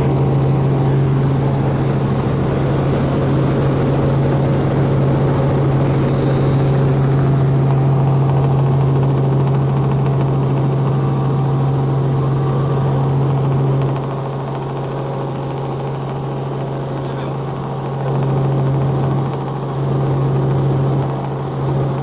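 Helicopter in flight heard from inside the cabin: a loud, steady low drone of rotor and engine. It drops a little in level about two-thirds of the way through, then swells back briefly twice near the end.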